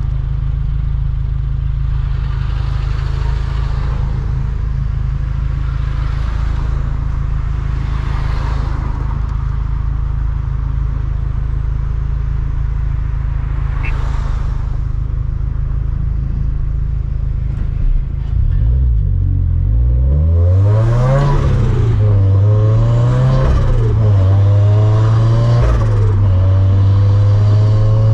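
Turbocharged Scion FR-S flat-four engine heard from inside the car: it runs steadily at cruise with a few brief whooshes, then from about two-thirds in it accelerates, its pitch rising and dropping back several times under part throttle.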